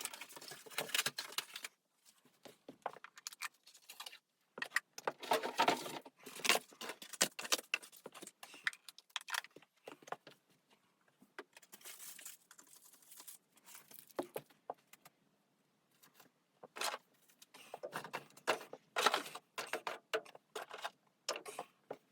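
Things being handled: irregular bursts of rustling and light clinking, with short pauses between them.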